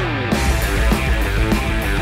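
Instrumental stretch of a rock song with no vocals: the band plays drums and a heavy bass line with guitar. A falling pitch slide comes in the first moment.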